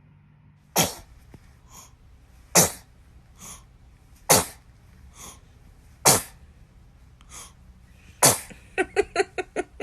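A baby sneezing five times in a row, evenly spaced, each sneeze sharp and sudden with a fainter sound just after it. Near the end, a quick run of short voice sounds begins.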